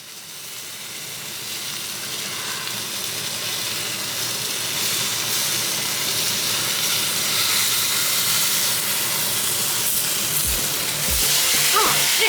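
Food sizzling in a hot pan: a steady frying hiss that fades in and grows louder.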